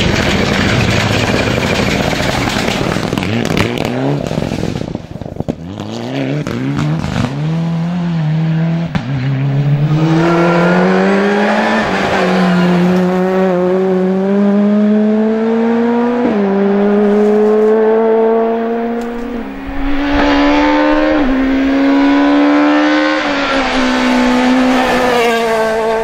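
Rally cars at full throttle on a gravel stage. First a rush of tyre and gravel noise as a car slides past, then an engine revving hard, its pitch climbing in steps through the gear changes as the car accelerates away.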